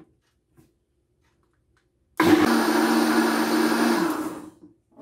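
Philco PH800 800-watt countertop blender running, mixing a liquid cake batter of eggs, milk, oil and sugar. It starts suddenly about two seconds in, runs with a steady motor hum under a loud whir, and stops after about two seconds.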